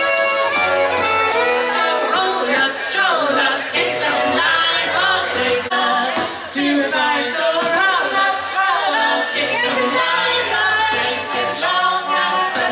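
Live band music with singing, an accordion among the instruments.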